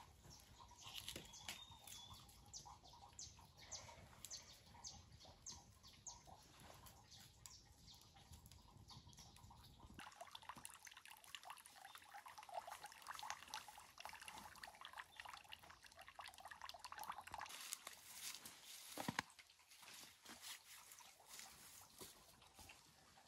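Quiet scene: a small wood campfire crackling faintly with scattered light snaps, then, after a change of scene, soft rustling and light ticks with one sharper knock near the end.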